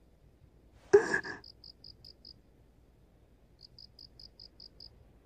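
Crickets chirping in quick, even trains of about five chirps a second, with a pause of about a second between the runs. About a second in, a brief louder sound cuts across them.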